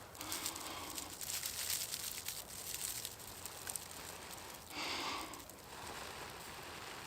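A dry-grass tinder bundle crackling and rustling as it is handled around a friction-fire ember, then one breath blown into it about five seconds in to coax the ember to flame.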